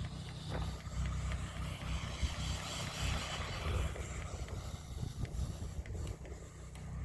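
Electric 3S-powered RC rally car running and sliding on ice-crusted snow: motor and tyre noise that swells in the middle, over a steady low rumble.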